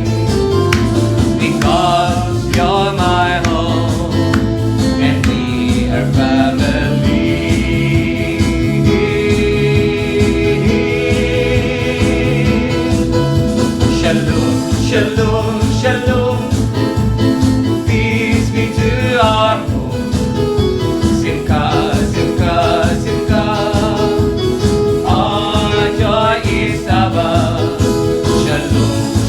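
Gospel-style worship song with singing voices over a band, with a steady beat.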